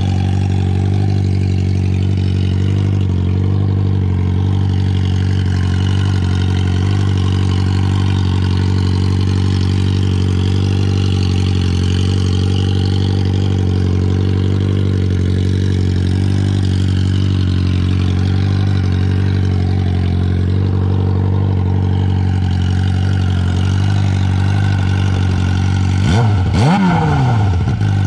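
Suzuki GSX-R 600's inline-four engine idling steadily, running smoothly. Near the end there is a brief rise and fall in pitch.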